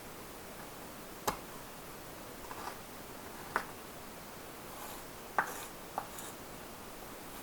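Knife cutting a block of cacao paste into small pieces on a board: four sharp knocks of the blade, spaced a second or two apart, with faint scraping in between.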